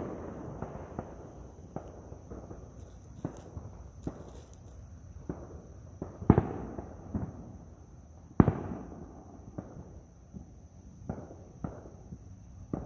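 Fireworks and firecrackers going off around the area: scattered sharp bangs at irregular intervals, each with an echoing tail, the two loudest about six and eight and a half seconds in.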